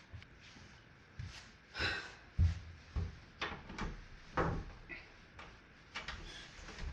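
Irregular knocks and bumps, like a door or drawer being handled, the loudest about two and a half seconds in and again around four and a half seconds.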